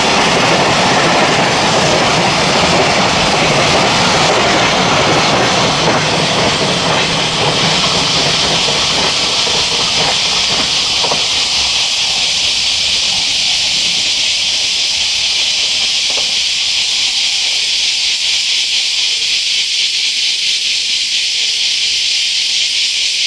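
Freight train's container wagons running past on the rails, the rumble fading over the first ten seconds or so as the train moves away, with a few faint wheel knocks. A steady high hiss runs throughout and is the main sound once the rumble has died down.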